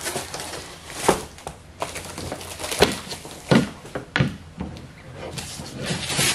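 Cardboard box and packing rustling as flat white wall-shelf boards are pulled out and set down on a table, with several knocks as the boards touch the table and each other.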